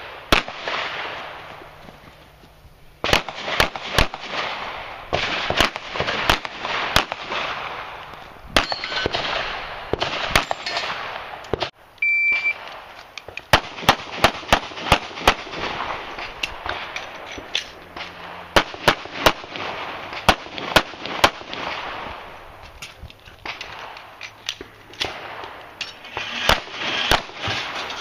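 Pistol shots fired in quick pairs and rapid strings during a practical-shooting course of fire, with short pauses between strings and a brief break about twelve seconds in.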